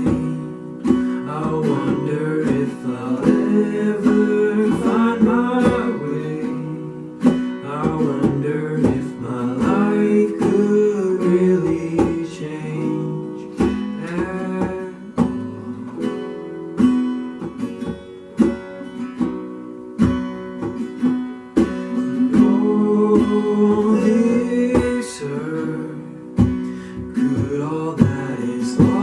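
Worship song played live: acoustic guitar strummed steadily, with a voice singing over it.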